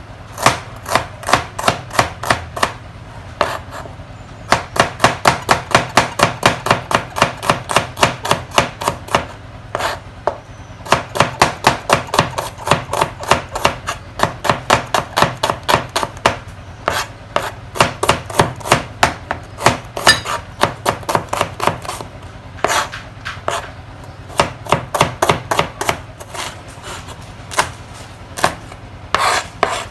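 A knife slicing shallots on a plastic cutting board: quick, even knocks of the blade on the board, about four a second, in runs broken by short pauses. Near the end the same knife is slicing a red chilli.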